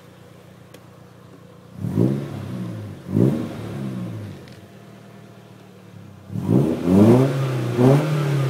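Nissan SR20DE 2.0-litre four-cylinder engine of a 1992 S13 revved from idle: two quick throttle blips about a second apart, then after a few seconds of idle a longer rev that climbs high and is held, dipping briefly before rising again.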